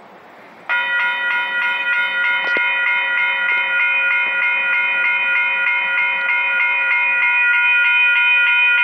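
Railway level-crossing warning bell starting abruptly about a second in and ringing in a rapid, even repeat, a few rings a second: the crossing signals have activated for an approaching train.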